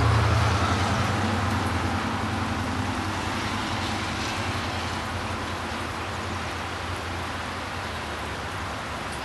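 Steady rain falling, with a passing vehicle's low rumble loudest at the start and fading away over the first several seconds.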